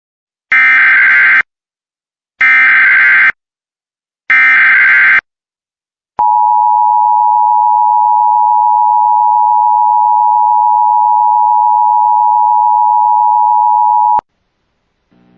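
Emergency Alert System tornado-warning alert: three one-second bursts of the warbling, buzzy digital SAME header, then a steady attention-signal tone that holds for about eight seconds and stops abruptly.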